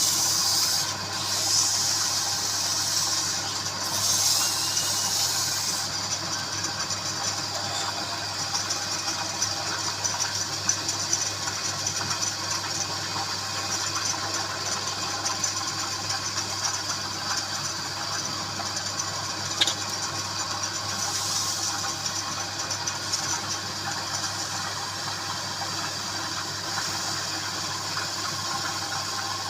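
Wood lathe running with a steady motor hum, while a turning tool cuts the spinning wood with a hiss that comes in louder stretches during the first six seconds and again briefly around twenty seconds in.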